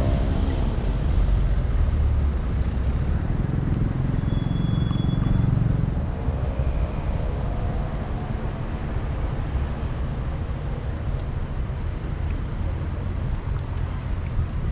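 Steady outdoor rumble, heaviest in the low end, with faint voices in the distance.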